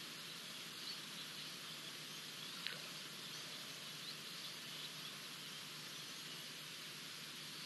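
Steady outdoor hiss of bush ambience with faint, short, high bird chirps scattered through it and one sharper, brief high call about two and a half seconds in.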